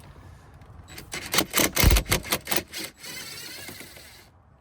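Impact wrench with a 21 mm socket on a steering wheel nut: about a second in it hammers in a quick run of loud blows for about two seconds, then spins freely for about a second as the nut runs off, and stops suddenly.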